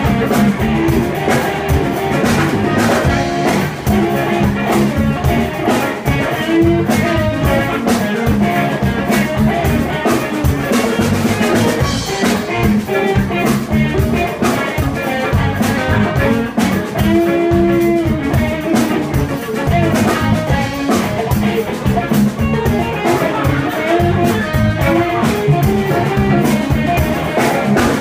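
A live band playing: electric guitars and bass guitar over a drum kit keeping a steady beat.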